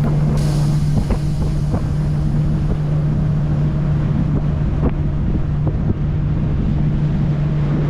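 Tour boat's motor running steadily with a low hum, with wind buffeting the microphone.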